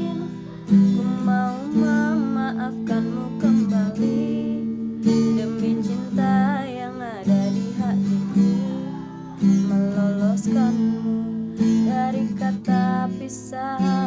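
Acoustic guitar strumming chords as the introduction to a song, with a strum about every second.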